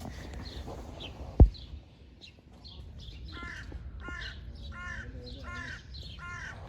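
A crow cawing five times in a steady series, each caw a harsh arched call, over small birds chirping; a single sharp thump sounds about a second and a half in.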